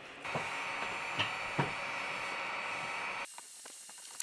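Heat gun blowing steadily to shrink heat-shrink tubing over a freshly crimped battery-cable lug, with a few light knocks from handling the cable. The blowing stops abruptly about three seconds in.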